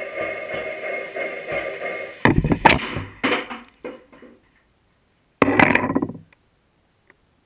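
A steady hum, then about two seconds in a sudden loud rush of air and clattering as an air-pressurised plastic-bottle water rocket, fired without water, releases from its launch ramp, dying away within two seconds. A second loud burst of noise a little over five seconds in.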